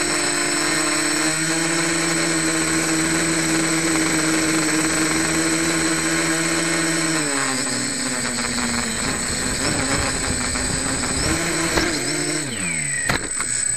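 Brushless motors and propellers of a homemade quadcopter, heard from its onboard camera, running with a steady hum; the props are not yet balanced. About seven seconds in the pitch drops and wavers, and near the end the motors spin down sharply, with a couple of knocks as the quad comes down into the grass.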